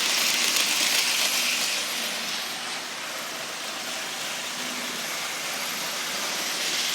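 Atlas model electric locomotive and its train running along model track at speed: a steady motor whir and wheel hiss on the rails, louder in the first couple of seconds, fading a little midway and growing again near the end as it passes close to the microphone and away.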